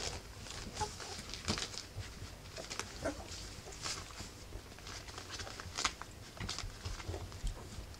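Three-week-old rough collie puppies scuffling and scrabbling about on fleece bedding around their mother: scattered soft rustles, pad-and-claw scratches and small snuffling noises.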